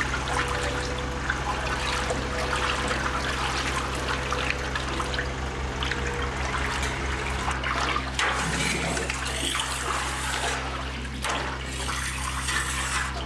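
Milk in a stainless steel cheese vat sloshing and trickling as diluted rennet is poured in from a stainless jug and stirred through by hand, with a steady low hum beneath.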